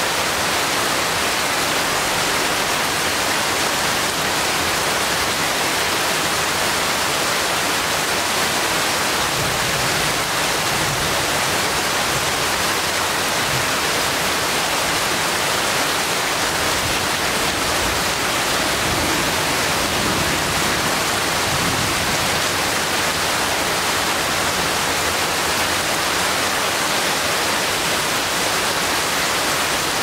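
Steady heavy rain pouring down on forest leaves and trees, an even, unbroken hiss.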